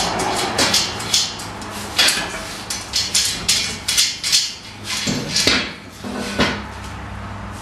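Metal lawn chair frames and parts clanking and knocking together as they are handled and fitted during assembly, in quick irregular knocks.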